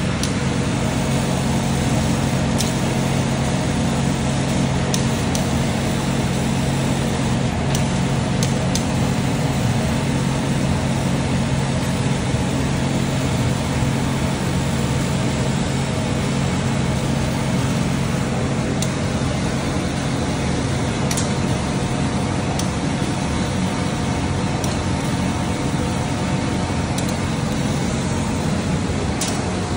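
Laser cutting machine running as it cuts a sheet: a steady mechanical hum with several held low tones, and a few faint ticks scattered through it.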